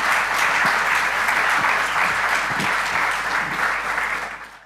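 Audience applauding steadily, with many hands clapping. The applause fades out near the end.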